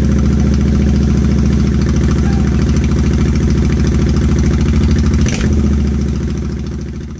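Royal Enfield Interceptor 650's parallel-twin engine idling steadily with its stock silencers removed, very loud through the open header pipes. There is a brief sharp sound about five seconds in, and the engine sound dies away near the end.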